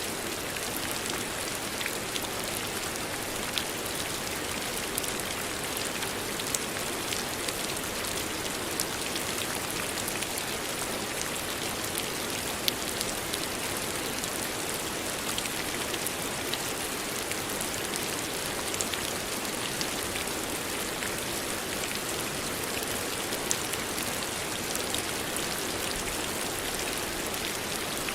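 Steady rain falling, a dense even hiss with many small sharp drop ticks scattered through it.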